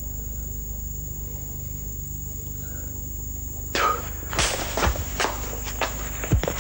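A steady high whine and low hum over the old soundtrack, then from about four seconds in an irregular run of sharp knocks and scuffs: footsteps and scuffling.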